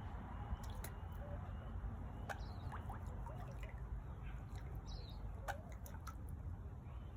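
Small birds giving short, scattered chirps and squeaky calls, mixed with several sharp clicks, over a steady low rumble.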